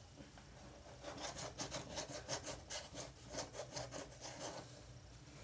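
Faint rasping rub strokes, about three a second for some three and a half seconds, as of hands rubbing on a small plastic bottle.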